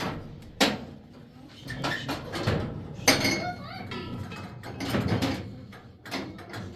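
Metal objects clanking and clinking as they are handled, two sharp clanks about two and a half seconds apart, the second ringing briefly, with a few faint voices in between.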